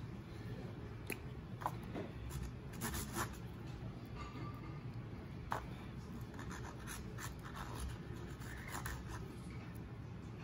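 Glue stick rubbed along a cardboard strip in scratchy strokes, with a few sharp clicks as the stick is handled, over a low steady room hum.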